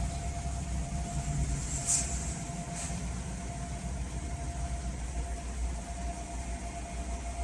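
Steady low rumble with a faint steady whine above it, and two light clicks about two and three seconds in.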